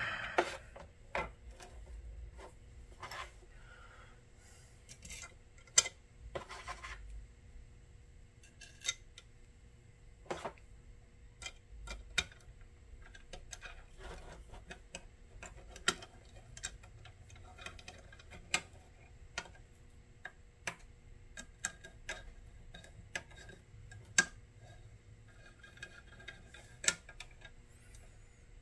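Scattered, irregular light clicks and taps of small metal parts and hand tools being handled while reassembling a diode laser engraver's module.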